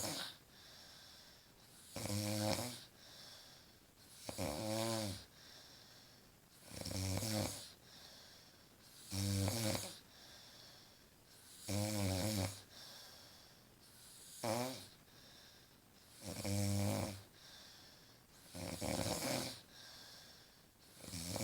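A woman snoring in her sleep: one loud snore about every two and a half seconds, each lasting about a second, with a fainter breath between them.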